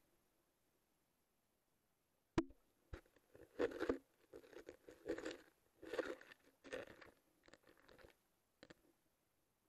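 Handling and water noise picked up by an action camera's microphone through its sealed waterproof case while it is underwater. After a couple of seconds of near silence, a sharp click about two seconds in, then about five seconds of irregular, muffled crunchy rustling and knocking with a few more clicks.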